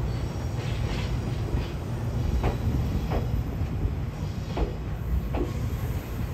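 Freight train of tank wagons rolling along the tracks: a steady low rumble with paired wheel clacks over rail joints recurring every second or two.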